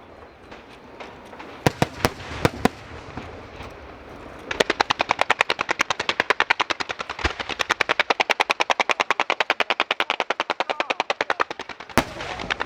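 Fireworks going off: a few separate bangs, then a rapid, evenly paced run of cracks at about eight a second lasting around seven seconds, and one more bang near the end.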